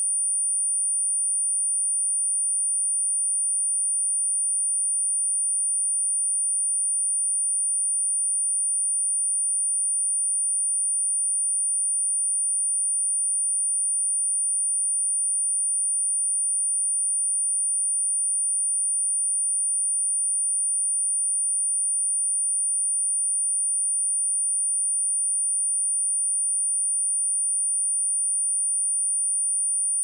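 A continuous pure 9352 Hz sine-wave test tone, a single high-pitched whistle held at a constant level.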